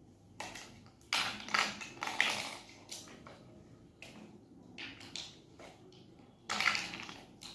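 Large plastic toy building blocks clicking and clattering as they are handled and pressed together, in irregular bursts, busiest about one to two and a half seconds in and again near the end.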